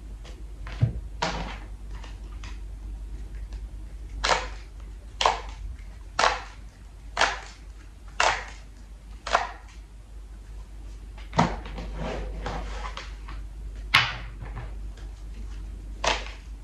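Deck of tarot cards being shuffled by hand: short crisp rustling slaps of cards, a run of them about once a second, then a few more spaced further apart.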